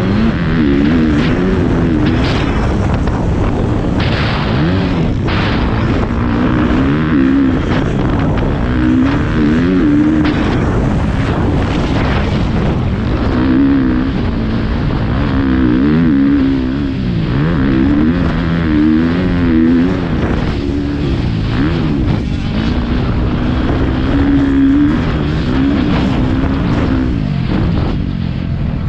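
Motocross dirt bike engine revving up and down again and again as it is ridden round a dirt track, heard from the rider's helmet camera with wind noise over it.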